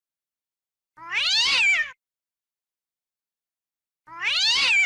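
A cat screaming: one drawn-out yowl about a second long that rises and then falls in pitch, played twice about three seconds apart as the same repeated recording, with dead silence between.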